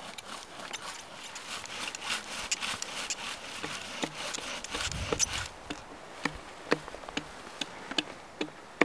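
Bow drill being burnt in: the wooden spindle grinds back and forth in the hearth board's socket with each stroke of the bow, a rhythmic rasping rub. The strokes give way to sparser clicks and knocks in the second half.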